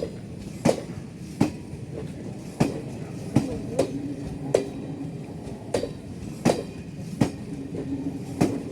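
Express passenger train running on the track, its wheels clacking over the rail joints above a steady rumble, a sharp clack about every second.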